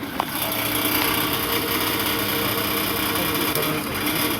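2008 Toyota Sienna van making a steady mechanical whir: several steady tones over a strong high hiss, dropping away abruptly near the end. It is an unexplained noise that the owner suspects comes from the muffler, a fan or the alternator.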